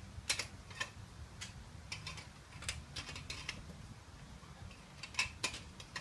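Torque wrench clicking and ratcheting on the rear wheel's nuts as they are brought to torque: a scatter of sharp metallic clicks, with two close together about five seconds in.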